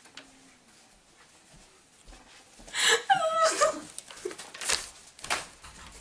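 A girl's high-pitched squealing laugh, starting suddenly about three seconds in after a quiet start, followed by a few short breathy bursts.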